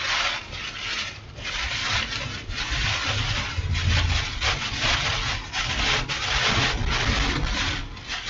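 Strong storm winds buffeting a moving vehicle, in gusts that swell and fade every second or so over a heavy low rumble. These are the rear-flank downdraft winds of a tornadic thunderstorm.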